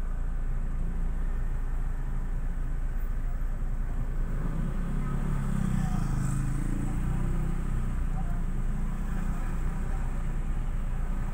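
Low, steady rumble of a car's engine and tyres heard from inside the cabin while driving slowly on a town street. A nearby engine swells louder for a couple of seconds about halfway through.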